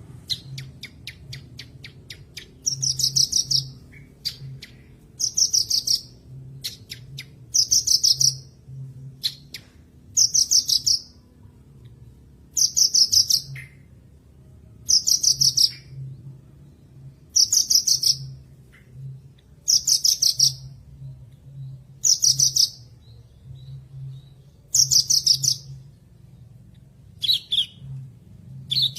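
Javan bush lark (branjangan) singing a short phrase of rapid, high chirping notes, about a second long and repeated about every two and a half seconds.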